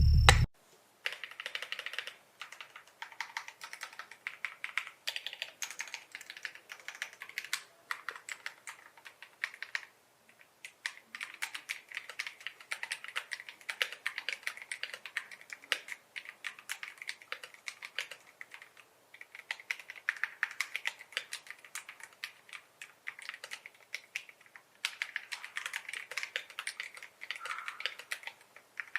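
Typing on an Epomaker TH96 gasket-mounted mechanical keyboard: quick runs of key clicks and clacks in bursts, with brief pauses. Music cuts off just at the start.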